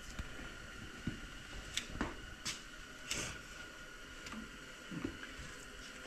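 A knife trimming fat off a raw deer roast: a few short, soft slicing and handling noises of meat on a stainless steel table, over a faint steady hum.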